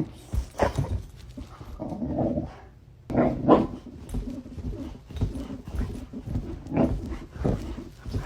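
A dog making a series of short, uneven vocal sounds, loudest a little after three seconds in.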